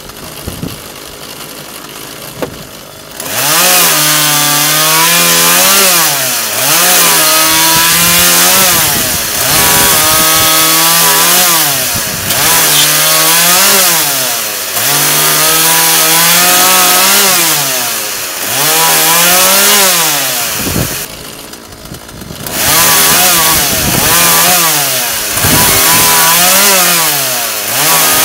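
Two-stroke Husqvarna chainsaw, fixed in a stand. It idles for about three seconds, then repeatedly revs up to a high, held pitch and drops back, about eight times, as small logs are fed across the bar and cut.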